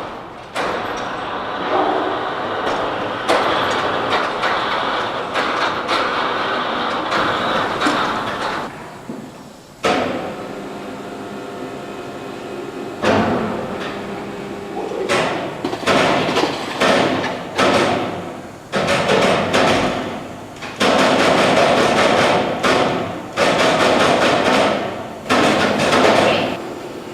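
Machinery noise with repeated metal knocks and clanks, starting and stopping abruptly: heavy equipment being handled and moved.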